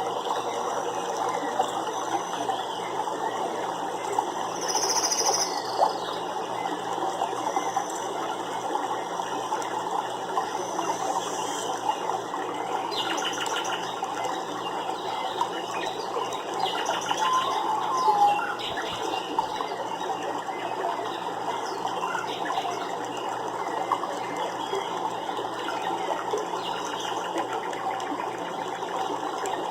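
Steady rush of flowing water, with a short high bird note about five seconds in and a few faint chirps later on.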